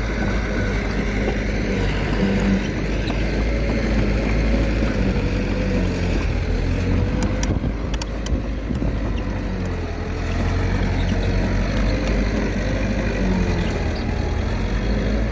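Small Komatsu D21A bulldozer's diesel engine running steadily under load, its pitch wavering up and down as it works. A few brief clicks come about seven to eight seconds in.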